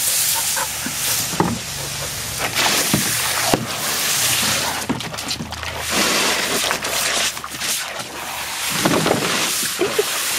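A garden hose spray nozzle jets water into a plastic kiddie pool in a steady hiss, while a dog splashes and bites at the spray, making irregular splashes.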